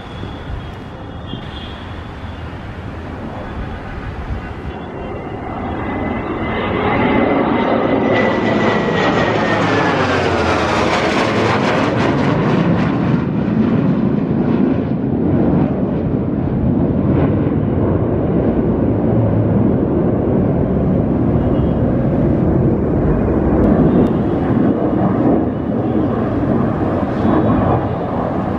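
Mikoyan MiG-29 fighter's twin turbofan jet engines making a display pass: the jet noise builds over the first several seconds, a whine falls in pitch as it goes past about ten seconds in, then a steady loud jet sound carries on as it manoeuvres.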